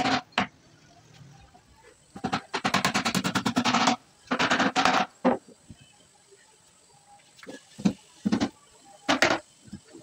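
Particle-board drawer being pushed in and pulled out on metal side runners. It gives a fast, even rattle of clicks for about two seconds, a shorter rattle just after, then a few separate knocks near the end as it runs to its stops.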